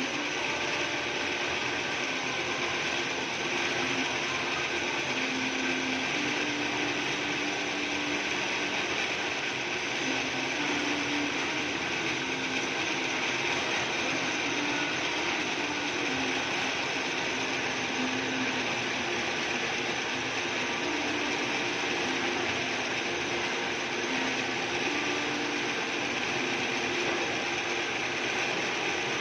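Drill press running steadily while boring a hole in metal.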